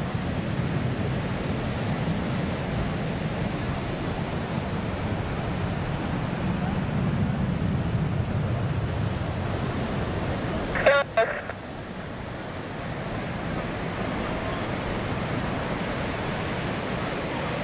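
Distant F-16 fighter jet rumbling steadily, mixed with wind noise on the microphone. About eleven seconds in, a brief snatch of a voice is heard, after which the rumble drops and slowly builds again.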